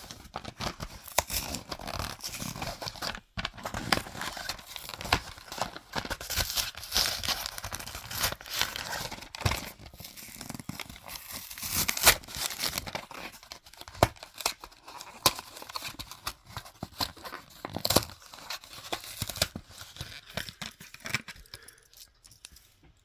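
Hot Wheels blister-card packaging being opened by hand: cardboard tearing, and plastic crinkling and crackling, in irregular bursts with sharp snaps. It dies away about two seconds before the end.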